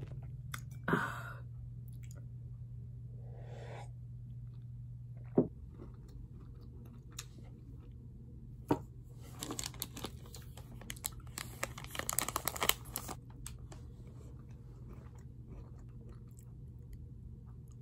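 A person biting and chewing a crunchy snack close to the microphone: scattered crisp crunches, with a busier run a little past the middle. A low background hum cuts out about five seconds in.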